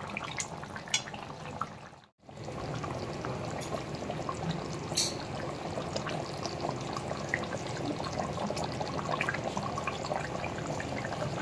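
Chicken curry in green chilli and coriander gravy simmering in a kadai: steady bubbling with small pops. The sound breaks off briefly about two seconds in.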